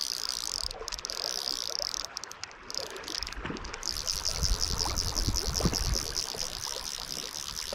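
Fly reel's ratchet clicking rapidly and evenly as line is wound in on a hooked brown trout, pausing briefly twice, over the rush of river water.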